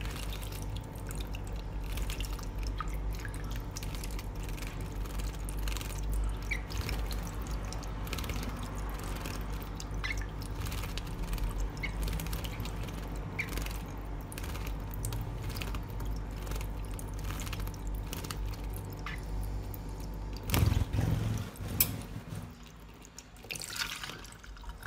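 Thin stream of tap water splashing into cupped wet hands as a European goldfinch bathes in it, beating its wings in the water in quick flurries of small splashes. About twenty seconds in comes a louder burst of splashing and knocks, then only the running water.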